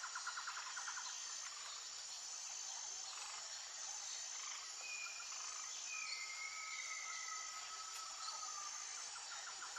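Steady high-pitched insect chorus. A rapid pulsing trill in the first second, and a few thin, drawn-out whistled calls from about the middle.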